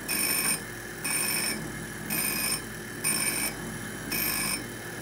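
Surface grinder running, with a high-pitched ringing hiss that comes on for about half a second once every second as the wheel passes back and forth across a soft-metal test piece on a light finishing cut.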